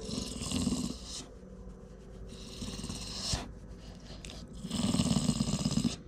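A dog breathing noisily and snuffling close to the microphone: three long, rasping breaths of about a second each.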